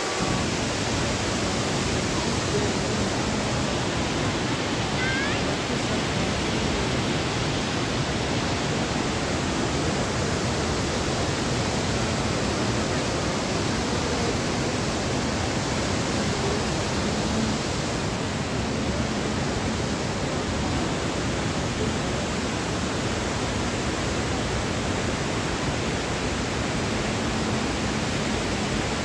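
Saryu river water rushing steadily, a continuous even roar of flowing water.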